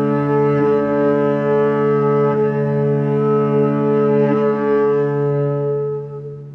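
Cello bowed in a low, sustained drone, with slight shifts in the held tone every second or two. It fades near the end.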